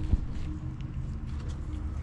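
A sharp metallic knock just after the start, then small clicks of hand tools working at the serpentine belt tensioner in the engine bay, over a steady low hum.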